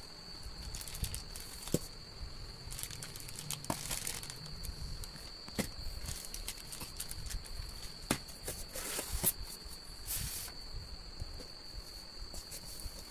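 Plastic packaging bags crinkling and rustling as they are handled and pulled out of a cardboard TV box, with scattered light knocks and taps against the cardboard and foam.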